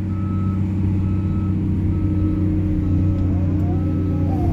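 Diesel heavy machinery running steadily while its reversing alarm beeps about once a second.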